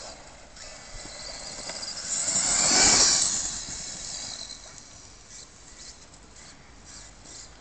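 A vehicle passing by: a rush of noise that swells, peaks about three seconds in, then fades away.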